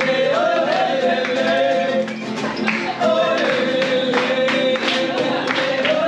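Latin-style music with a singing voice and plucked guitar, with people clapping along to it.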